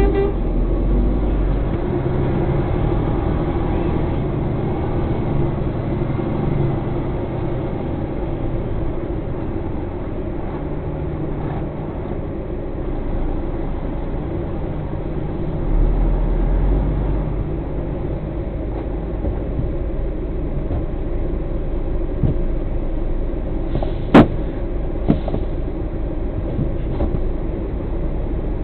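Lorry's diesel engine running at low speed, heard from inside the cab, its note strengthening twice as the truck pulls forward. Two sharp clicks near the end.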